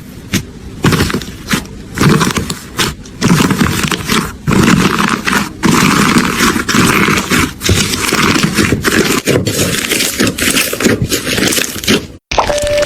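Slime being squished and worked: irregular bursts of loud, noisy squishing and scraping, broken by brief abrupt cuts.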